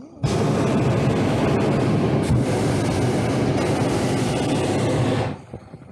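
Hot-air balloon's propane burner firing in one long blast of about five seconds, loud and steady, starting suddenly and cutting off abruptly as the blast valve closes; it heats the air in the envelope.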